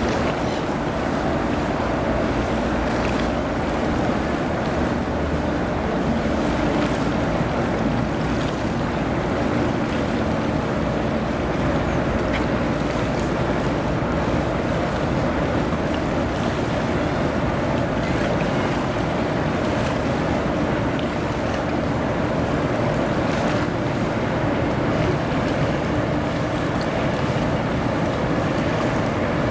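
Ship engines running with a steady drone, mixed with water wash and wind noise on the microphone.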